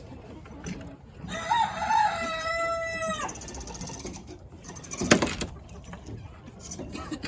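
A rooster crowing once, a single call about two seconds long. A sharp knock follows about five seconds in.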